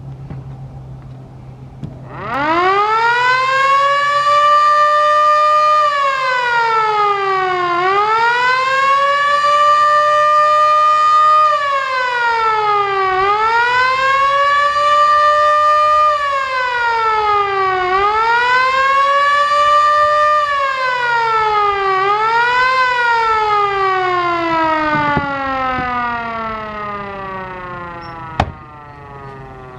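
MS-590 dual-port motor siren sounding the attack signal. It winds up about two seconds in, then wails up and down about four times, holding its top pitch for a few seconds each time, before winding down in a long falling tone. A sharp click sounds near the end.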